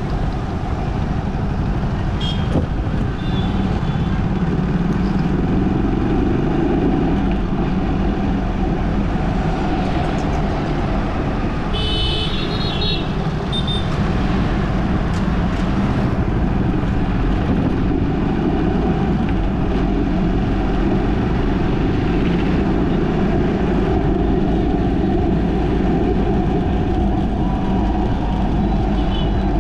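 Steady city road-traffic noise of engines and tyres rumbling. Short horn toots sound about two seconds in and again for about a second and a half near the middle.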